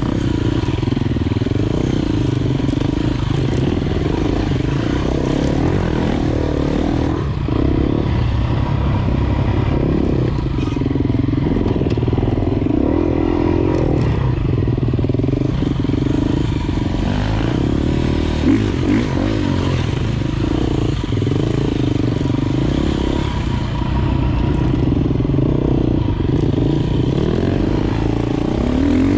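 Off-road enduro motorcycle engine running while riding, its revs rising and falling with the throttle.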